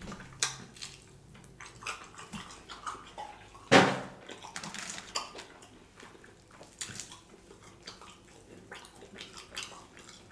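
Close-up eating sounds of fried chicken wings eaten by hand: wet chewing and lip-smacking with many short clicks. One much louder sudden mouth sound comes about four seconds in.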